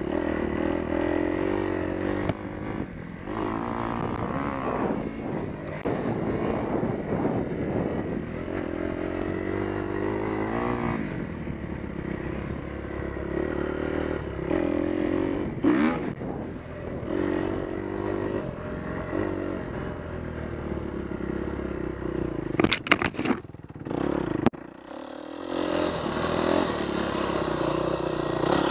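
Kawasaki KX250F motocross bike's single-cylinder four-stroke engine revving up and down while being ridden. A few sharp knocks come about three-quarters of the way through, followed by a short drop in engine sound.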